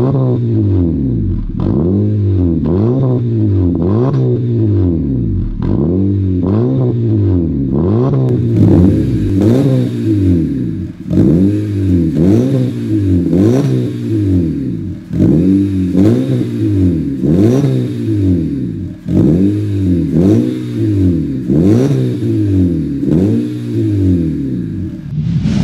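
2016 Honda Civic's aftermarket catback exhaust as the engine is blipped over and over at standstill. Each rev swings the exhaust note up and straight back down, about one blip every second or two, with the loudest revs in the second half.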